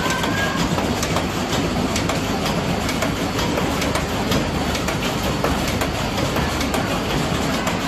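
SHMS500-2 wood wool machine running, shaving wooden billets into wood wool, with a steady clattering rattle made up of many small clicks.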